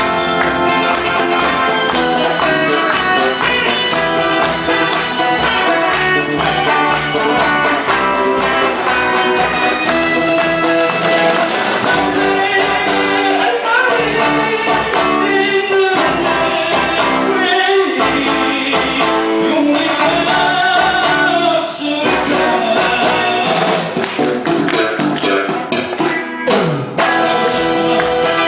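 Amateur band playing a 70s-80s Korean pop song live, with guitars, a steady drum beat and a voice singing.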